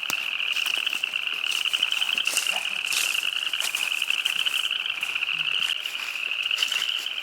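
A chorus of frogs calling without a break, a steady high trill, with a few faint snaps or crackles over it.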